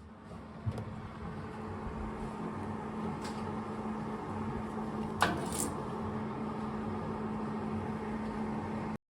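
A steady mechanical hum with an even hiss, broken by two sharp clicks about a second in and about five seconds in, cutting off abruptly near the end.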